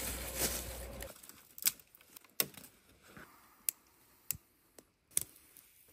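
Dry twigs and kindling snapping and crackling as a small campfire is lit and fed: about six sharp, separate snaps spread over several seconds, with leaf-litter rustling near the start.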